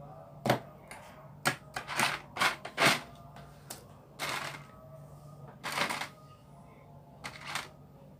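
Plastic Lego pieces being handled and pressed together: a string of sharp clicks and rattles, with two longer rustles of pieces being sorted about four and six seconds in.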